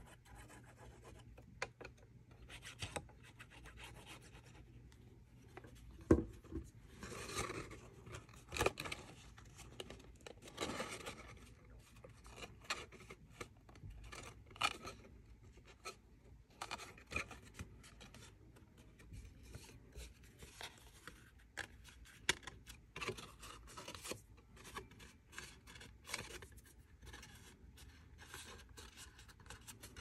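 Stiff cardstock box pieces being handled, folded and pressed together by hand: scattered rustles, rubs and scrapes of paper with small sharp taps.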